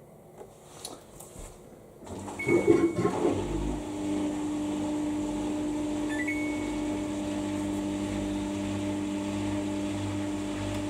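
Samsung EcoBubble washing machine during its rinses: a short loud splashing of water, then about three and a half seconds in a motor starts and runs with a steady hum.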